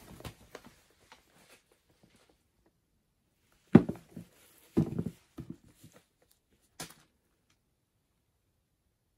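A few short knocks and thumps of things being handled: a sharp one about four seconds in, a small cluster around five seconds, and a last light one near seven seconds.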